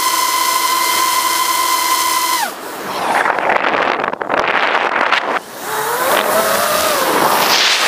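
FPV racing quadcopter's motors and propellers whining steadily at full throttle, then dropping sharply in pitch about two and a half seconds in as the throttle is cut. A rough rushing noise follows while the quad rolls inverted, then the motors spool up and down in rising and falling whines, climbing again near the end.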